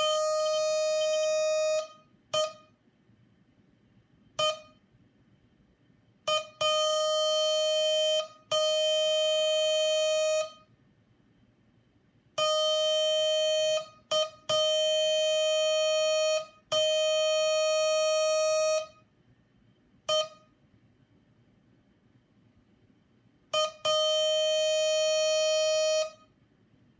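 Morse code practice oscillator tone, a steady buzzy beep near 600 Hz, keyed by hand in slow, irregular presses. There are a few short blips and several long tones of about two seconds each, with pauses between them.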